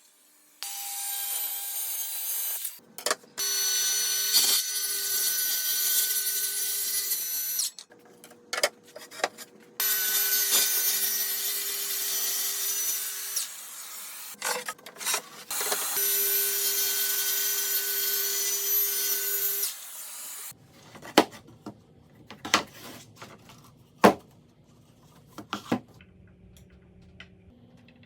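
A power tool running in several long bursts of a few seconds each, stopping abruptly between them, followed by scattered knocks and clicks.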